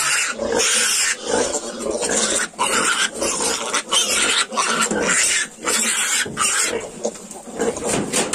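Yorkshire piglets squealing and grunting while they suckle at the sow, in a loud, unbroken run of short, harsh calls.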